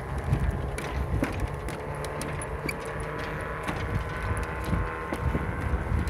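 Footsteps knocking on the wooden plank deck of a suspension bridge, about two a second, over wind noise on the microphone.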